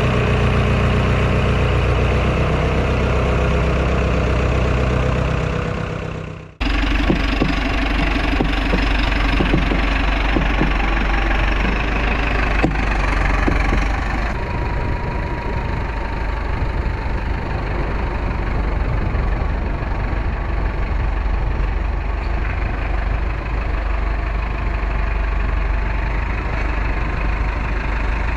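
An engine running steadily. About six and a half seconds in it breaks off abruptly and resumes at once with a rougher, different-sounding engine note, which runs on steadily.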